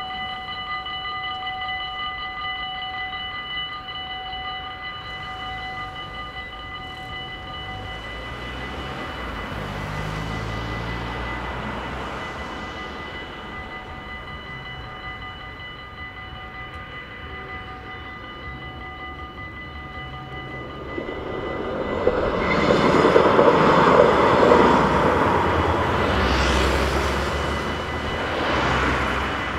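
Electronic level-crossing bells ringing steadily as the barriers come down, then more faintly once they are down. About two-thirds of the way through, a train passes over the crossing with a loud rumble and rush that peaks and then eases off near the end.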